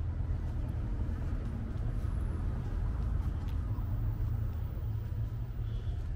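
Outdoor city street ambience: a steady low rumble.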